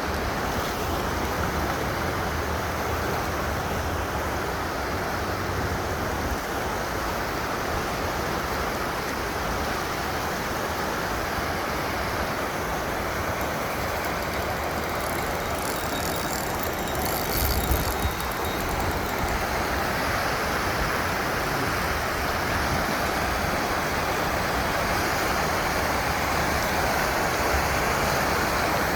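Steady rushing of flowing river water, with a low uneven rumble underneath and a brief louder rustle or knock about two-thirds of the way through.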